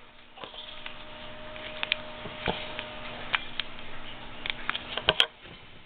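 Scattered light clicks and taps of handling noise, a few close together about five seconds in, over a steady low hum.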